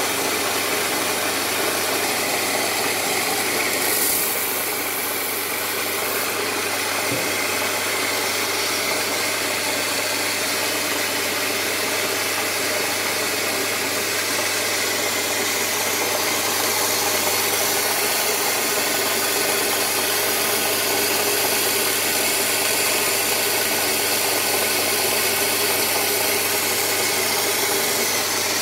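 Electric coffee grinder running steadily, its motor humming as it grinds roasted coffee beans.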